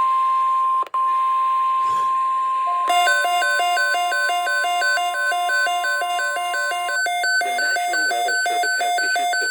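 NOAA Weather Radio 1050 Hz warning alarm tone, a steady electronic tone that drops out for an instant near the start and stops about seven seconds in. From about three seconds, a fast repeating electronic beep pattern joins it and keeps going after the tone ends.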